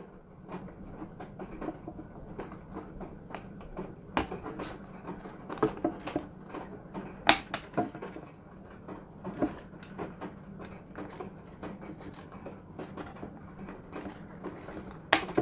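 Scattered small clicks and taps of plastic and wire being handled as wire leads and small plug connectors are fitted to the circuit board inside an opened drone remote controller's plastic shell. A faint steady low hum runs underneath.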